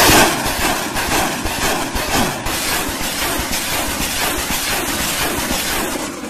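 Truck-mounted multiple rocket launcher firing a salvo: rockets launching one after another in quick succession, a loud continuous rushing noise that starts suddenly and pulses rapidly.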